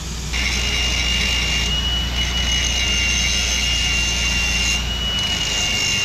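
Milwaukee cordless angle grinder grinding a steel sawmill carriage dog, a steady high whine with a hiss of abrasive on steel. It starts a moment in and is squaring off the dog's worn, rounded face to a straight, sharp edge.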